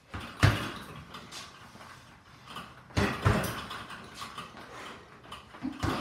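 Boxing gloves striking a hanging heavy bag and a double-end bag: a few hard punches, one about half a second in, two close together around three seconds, and one near the end, each followed by a short rattle.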